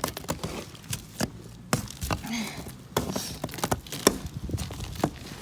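Irregular sharp cracks and knocks of a freezing-rain ice crust being broken, a dozen or so in a few seconds.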